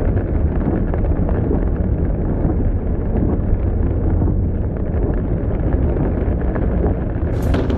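Storm wind buffeting the microphone: a loud, steady, dense rumbling noise, heaviest in the low end.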